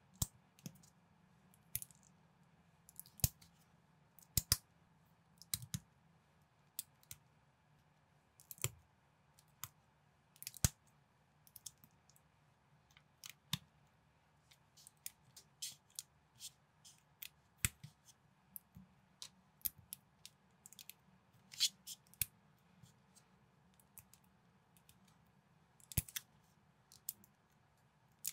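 Plastic building bricks clicking and snapping together as fingers press parts onto one another and handle them: irregular sharp clicks, a few at a time with gaps between, over a faint steady hum.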